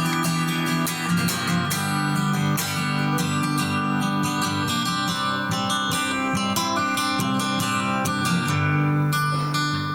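Acoustic guitar strumming chords steadily, an instrumental passage after the final sung chorus.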